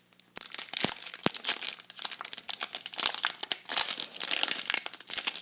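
Foil wrapper of a hockey card pack crinkling as it is handled and torn open: a dense run of sharp crackles starting about half a second in.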